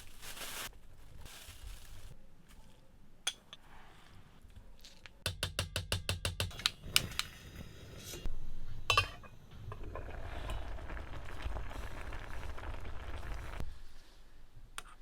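Camp cooking and eating sounds: dishes and utensils clinking. A quick run of about a dozen sharp clicks comes midway, then a clatter and a steady rushing hiss for a few seconds near the end.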